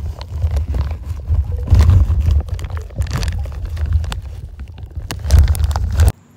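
Swimming-pool water heard through a camera held underwater: a loud, muffled low rumble of churning water with irregular bubbling and splashing. It cuts off abruptly near the end.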